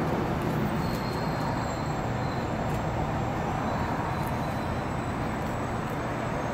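Steady rumble of road traffic, without any single event standing out.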